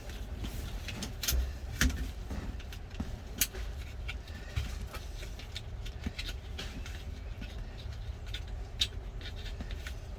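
Scattered, irregular clicks and light knocks of parts being handled while working on a truck's steering column and turn signal switch under the dashboard, over a low steady hum.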